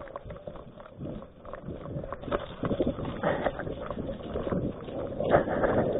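Running footsteps pounding quickly and unevenly on a leaf-littered woodland path, with the runner's body and kit jolting against the body-worn camera. They grow louder toward the end.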